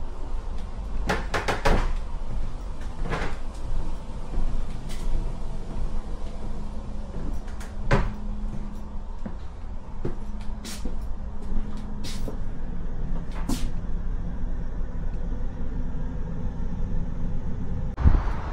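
Inside a moving tram: a steady low running rumble with sharp clacks and rattles now and then, and a faint low hum in the middle stretch.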